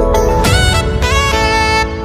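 Background music: a melody of held notes over a low bass line.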